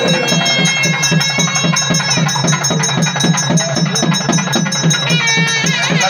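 Traditional South Indian temple music: a drum beating a steady pulse of about four strokes a second under a wavering, bending pipe melody.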